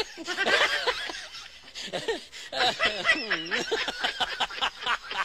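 People laughing and snickering in short bursts.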